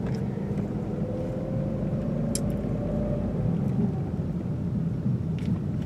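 Steady rumble of road and engine noise inside a moving car's cabin, with a swooshing sound that the driver fears is coming from the car.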